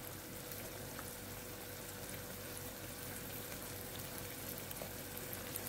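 Eggs and onion-tomato masala frying on medium heat in a nonstick kadai: a soft, steady sizzle as the eggs set undisturbed, with a faint steady hum underneath.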